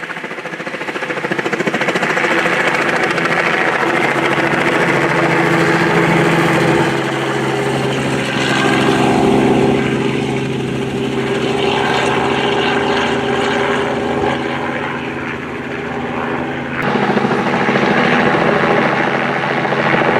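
Helicopter running steadily, its engine and rotor making a loud continuous drone. The sound builds over the first couple of seconds and changes pitch slightly about a third of the way in and again near the end.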